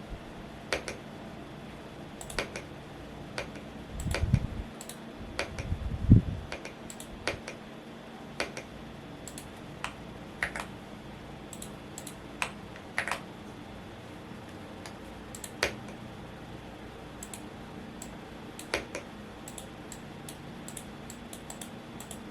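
Womier S-K71 mechanical keyboard being typed on in scattered, irregular keystrokes over a steady fan hum. About four and six seconds in come two brief low thuds, the second the loudest sound.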